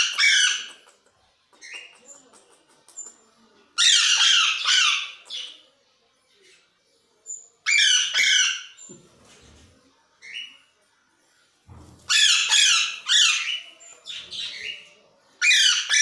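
Green parrots (Kashmiri mithu) squawking in about five loud bursts of a second or so each, with a few faint short chirps between them.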